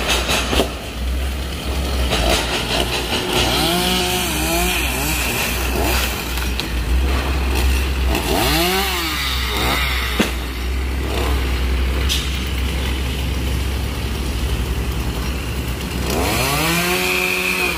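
Two-stroke chainsaw running in a tree, revved up and let back down three times, about 4, 9 and 17 seconds in, over a steady low rumble.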